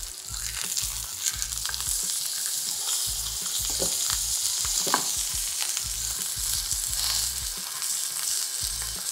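Beef steak searing in hot vegetable oil in a frying pan, sizzling steadily with scattered small crackles. The sizzle builds over the first couple of seconds as the steak is turned with tongs onto its raw side.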